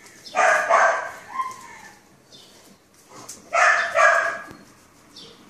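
Australian shepherd barking at close range: two quick double barks about three seconds apart, with a short falling whine after the first pair.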